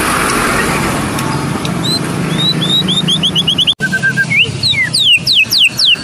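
White-rumped shama (murai batu Medan) singing: a string of clear downward-sliding whistles, a quick run of short rising notes, then more sliding whistles near the end, with a brief cut in the sound just before the end. A steady low motor hum runs beneath the song.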